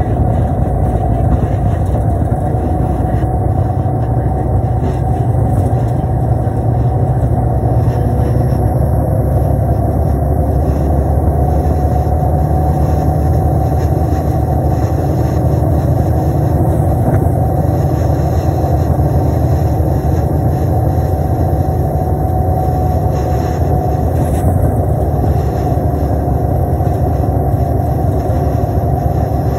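Steady drone of a 2005 New Flyer D35LF transit bus running on its Cummins ISL inline-six diesel, heard from inside the bus along with road noise.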